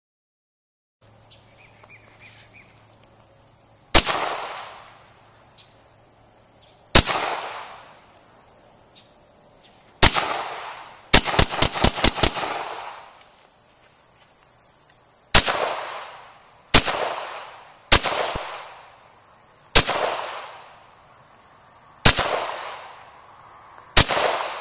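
Cobray M-11 9mm pistol firing: single shots a second or a few seconds apart, with a rapid string of about seven shots around eleven seconds in. Each shot trails off in an echo.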